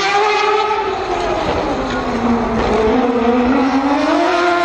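Mazda 787B's four-rotor 26B rotary engine running at high revs, its note climbing, dipping about two seconds in, then climbing again.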